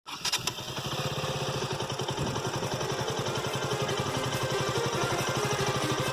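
KTM RC single-cylinder four-stroke motorcycle engine idling steadily with an even firing pulse, with a few clicks near the start.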